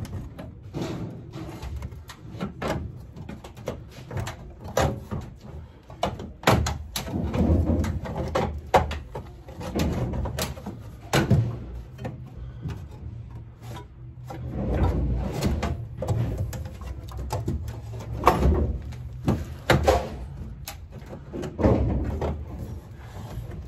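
Galvanized sheet-metal duct elbow being handled and worked onto a foil-insulated duct box. Irregular clanks, knocks and scrapes of thin metal, with a few duller thumps.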